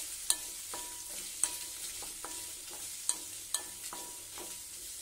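Whole shallots and dried red chillies sizzling in hot oil in a metal kadai, with a steady sizzle under it. A wooden spatula stirs them, knocking and scraping against the pan about ten times with a short metallic ring.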